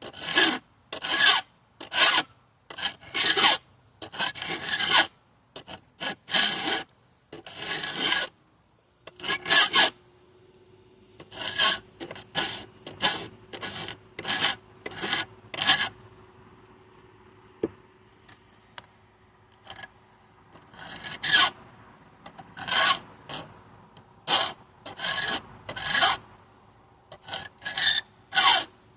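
Hand file strokes rasping across chainsaw chain teeth during sharpening, over twenty separate strokes at about one a second, with a lull in the middle.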